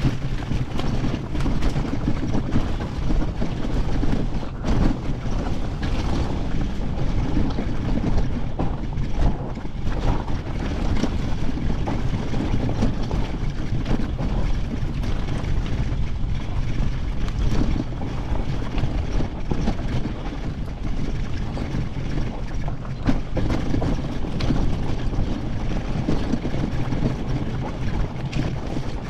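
Honda CR500 two-stroke dirt bike engine running as the bike is ridden along a single-track trail.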